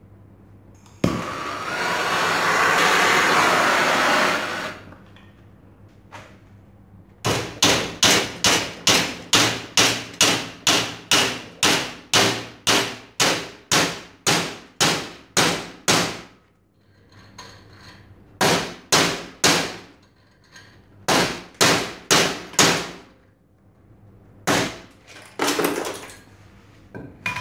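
Hammer blows ringing on a steel pin, driving it down through a sander part held in a bench vise: a long, even run of about two strikes a second, then shorter groups of strikes. Before the blows there is a loud steady rushing noise lasting about three seconds.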